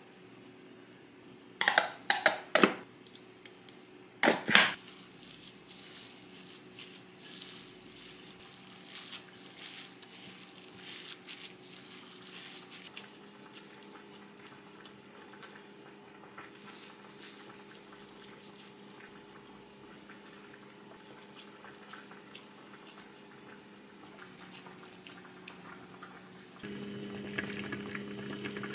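Kitchen sounds while cooking: several sharp clacks within the first five seconds, then faint watery, dripping sounds and small clicks over a steady low hum. The hum grows louder twice, the second time near the end.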